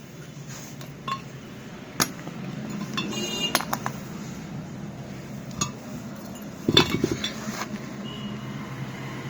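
Metal tools and parts of a submersible pump motor clinking and knocking together during disassembly: irregular sharp metallic clinks, some briefly ringing, with the loudest cluster about seven seconds in. A steady low hum runs underneath.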